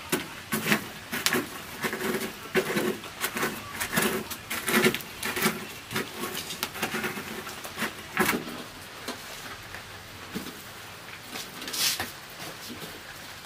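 A wood fire in a clay hearth crackling and knocking as a burning log is pushed and worked into the embers, the sounds coming thick and irregular, about two a second. They thin out later, with one sharp crack near the end.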